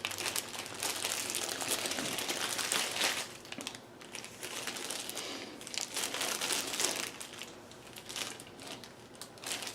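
Packaging being handled and unwrapped by hand, a dense crackling rustle for the first three seconds, then quieter rustling with another burst around six to seven seconds in.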